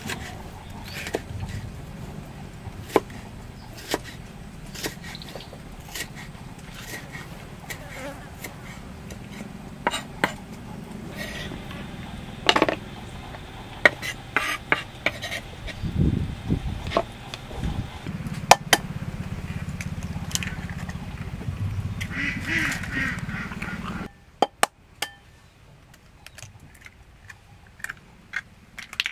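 Kitchen knife dicing tomatoes on a wooden chopping block: irregular sharp knocks of the blade on the wood over a low background rumble. The rumble cuts off about two-thirds of the way through, leaving a few quieter taps.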